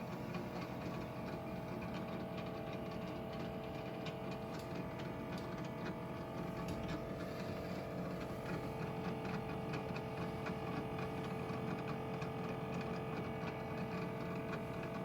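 Kitchen appliance heating water for coffee, a steady hum with a few held tones over a low rumble and fine crackle.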